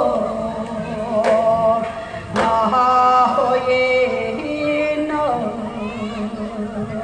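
Korean Gyeonggi folk singing: a voice holds long, wavering notes in a slow, chant-like melody, with two sharp percussion strikes in the first few seconds.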